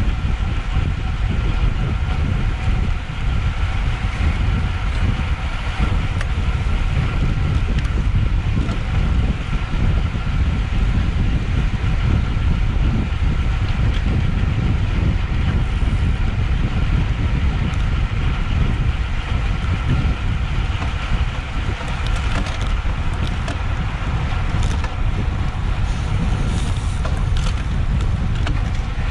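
Wind buffeting a GoPro microphone while moving at speed: a steady, loud rush with a heavy low rumble, over a faint constant hum from the bike's tyres and drivetrain on the road.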